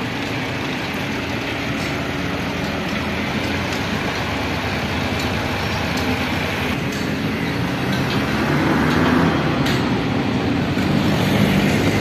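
Tractor diesel engine running steadily while its hydraulics tip the trolley bed to dump a load of sand, growing a little louder in the second half.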